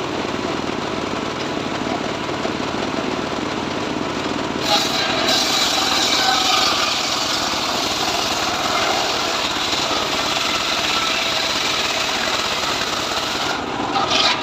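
Homemade srekel sawmill saw running steadily, then cutting into mahogany about five seconds in with a harsher, brighter sound of the blade in the wood that lasts until shortly before the end.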